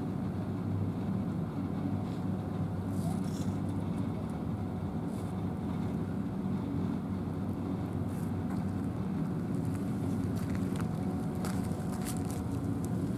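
Steady low engine drone that holds an even pitch, with a few faint high ticks near the end.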